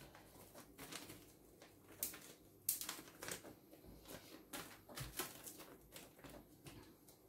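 Faint rustling of a small sachet of powder being handled and tipped, with scattered light clicks of a metal teaspoon, the sharpest few near two to three seconds in and again about five seconds in.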